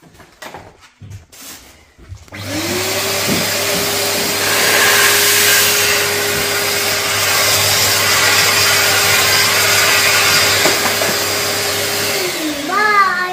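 Numatic tub vacuum cleaner switched on: its motor spins up with a rising whine about two seconds in and runs at a steady pitch with a loud rush of air. Near the end it is switched off and the whine falls away.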